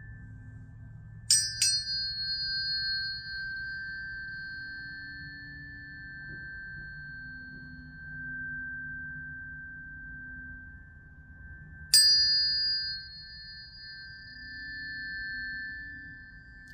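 Sun and Mercury planetary tuning forks struck twice in quick succession about a second in, and again near the end. Each strike gives a bright metallic ping that fades over a few seconds into a steady, sustained high ring, and the ringing swells and fades in between strikes.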